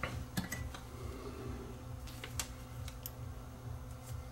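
Faint, scattered light clicks and handling noise as a receiver's rear-panel speaker fuse is checked, over a steady low hum.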